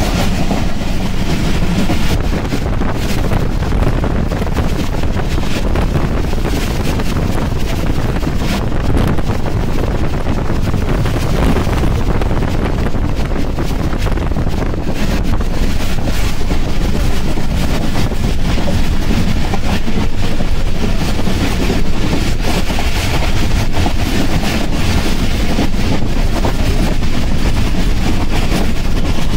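Steady wind rushing over the microphone held at the open window of a moving passenger train, over the continuous running noise of the carriage on the rails.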